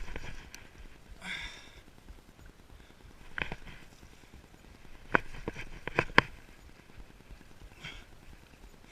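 A few sharp, separate clicks and knocks, a cluster of four between about five and six seconds in, with a short hiss about a second in.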